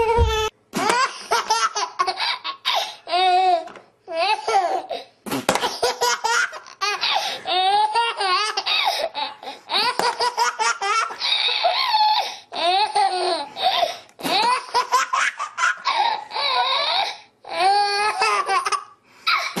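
A baby laughing hard, in repeated bursts of rapid, wavering laughter with short pauses for breath between them.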